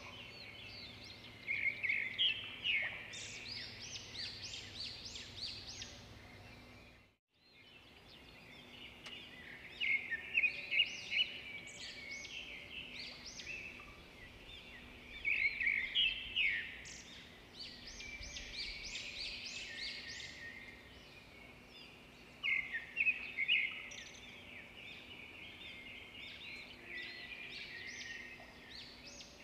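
A small songbird chirping and trilling in repeated bursts of quick high notes, with a brief break about seven seconds in.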